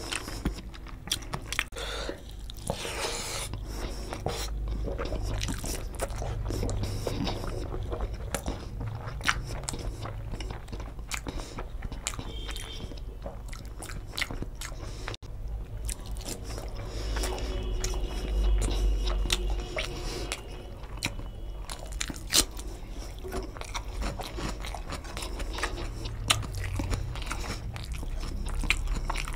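Close-miked eating sounds: chewing a mouthful of rice and egg curry, with many short mouth clicks, plus the hand mixing rice on the plate.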